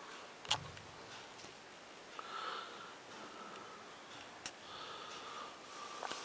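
Quiet small-room tone with two sharp clicks, the first with a low thump about half a second in and the second about four and a half seconds in, typical of handling a handheld camera. A faint thin steady sound runs in the background from about two seconds in.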